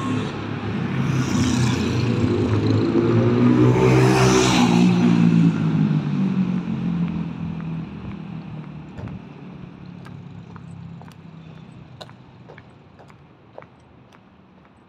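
A motor vehicle with a low engine note drives past on the road. It grows louder to a peak about four to five seconds in, then fades slowly away, and a few faint ticks are heard near the end.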